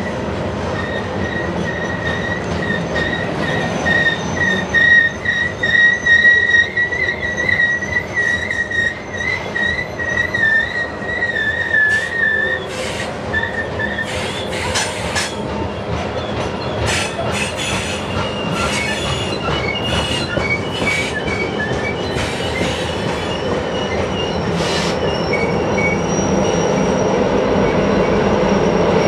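Loaded coal train's hopper cars rolling past with the brakes applied on a downhill grade: a steady high wheel squeal that wavers slightly, breaking up about halfway into a run of sharp short screeches and clicks over the rumble of the wheels. Near the end the rumble grows louder as the mid-train distributed-power locomotives come up.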